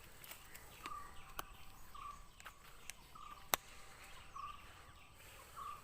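Faint outdoor ambience with a short, repeated animal call about once a second, and scattered sharp clicks, the loudest about halfway through.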